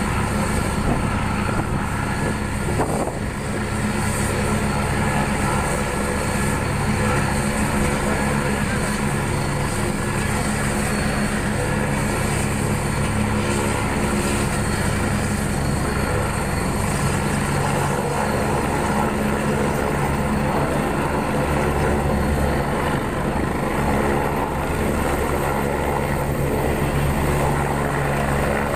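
AgustaWestland AW109 Grand helicopter running on the ground with its rotor turning. It makes a steady drone, and a high turbine whine rises slowly in the second half as power comes up for lift-off near the end.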